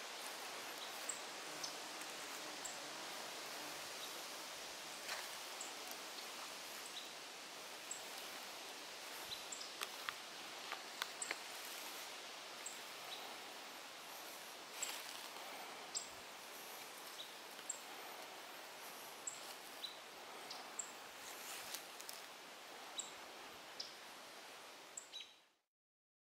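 American robins giving short, high alarm calls about once a second, scolding a great gray owl perched in their territory, over a steady outdoor hiss with a few faint clicks. The sound cuts off near the end.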